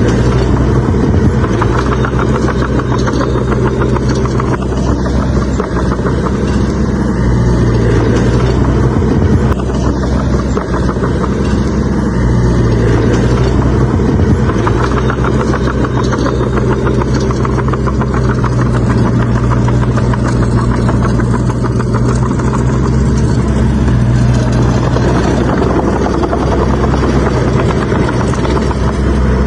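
Heavy earthmoving machine's diesel engine running steadily, a loud, continuous low hum with little change in pitch.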